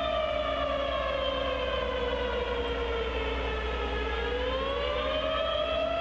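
Siren wailing, its pitch sliding slowly down for nearly four seconds and then climbing back up.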